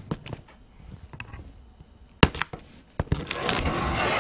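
A cardboard shipping box being handled as it is opened: faint clicks, two sharp knocks about two and three seconds in, then about a second of rasping, scraping cardboard noise near the end.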